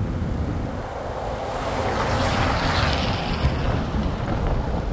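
Wind buffeting the microphone as a bicycle rides along at speed, making a steady low rumble. A rushing hiss from a small creek with rapids swells in the middle and then fades.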